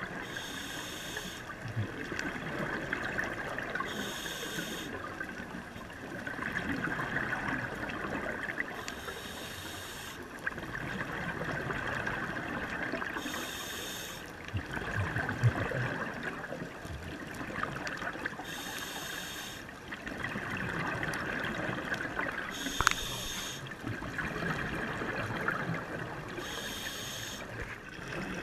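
Scuba diver breathing through a regulator, heard underwater: a hissing draw on each inhale, then a short burst of exhaled bubbles, repeating about every four seconds.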